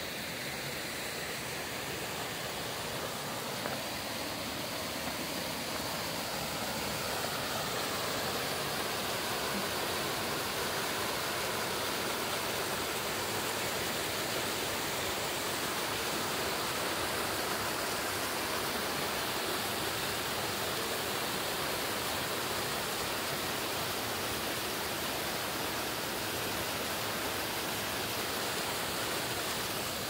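Small waterfall and rocky mountain stream: a steady rush of falling and flowing water, growing a little louder after the first several seconds.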